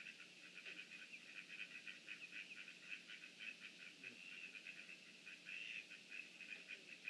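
Faint, steady pond-side chorus of short high chirps, several a second, with a soft low call now and then.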